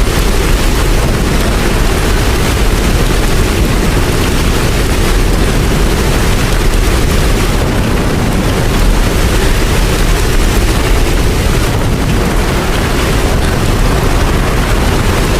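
Steady heavy rain, an even wash of noise that is heaviest in the low end, with no breaks or strikes.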